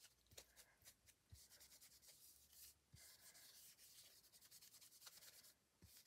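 Faint rubbing of a damp cloth over sticker stencils lying on a non-stick craft sheet, wiping the ink off with water in a few long strokes with short pauses.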